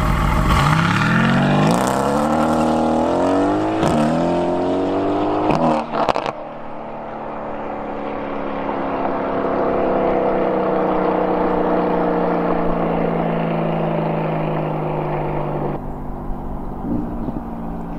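Renntech-tuned Mercedes-AMG GT's twin-turbo V8 accelerating hard, revving up through the gears with upshifts about two and four seconds in and sharp exhaust cracks near six seconds. Then it falls back to a quieter, steadier engine note that sinks slowly in pitch as the car runs on at a distance.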